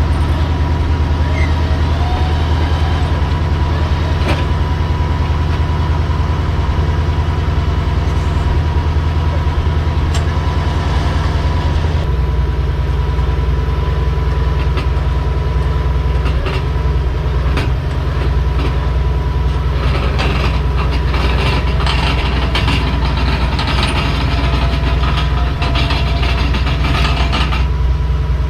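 A steady low engine drone, changing slightly about halfway through, with scattered clicks and knocks growing busier in the second half.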